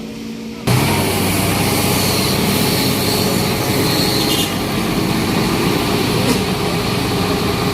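A vehicle engine running loudly and steadily, cutting in abruptly just under a second in.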